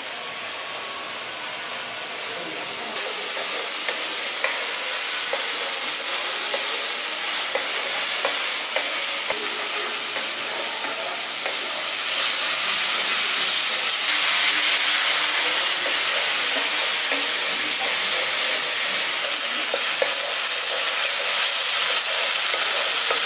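Onion, ginger-garlic and green chilli paste frying in oil in a kadai, sizzling steadily while a wooden spatula stirs and scrapes through it. The sizzle gets louder about three seconds in and again about twelve seconds in.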